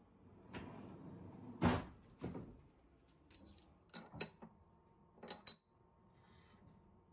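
A metal tool drawer sliding shut and closing with a knock, followed by several light metallic clinks as a metal workpiece is set into a machine vise.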